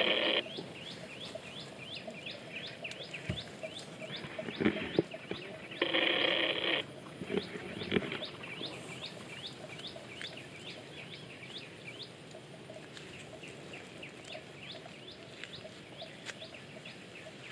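Birds calling in a rapid series of short, falling chirps, about three a second, thinning out in the last few seconds. A louder call lasting about a second breaks in about six seconds in.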